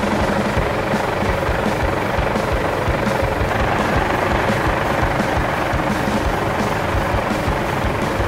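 Off-road 4x4 engine running hard under load as the vehicle climbs a steep rocky slope, a steady loud sound with a fast low throbbing.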